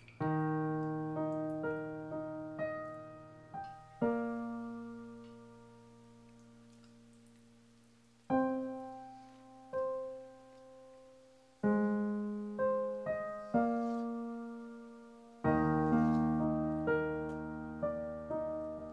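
Background piano music: slow notes and chords, each ringing out and fading, with short pauses between phrases.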